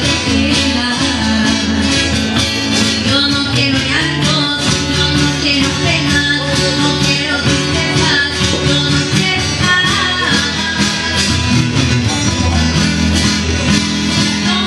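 A song played on strummed acoustic guitars with singing, the guitars keeping a steady strummed rhythm throughout.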